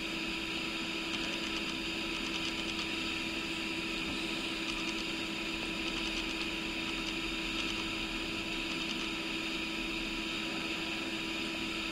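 Steady background hum and hiss with a constant low tone, with no distinct event, only a few very faint ticks.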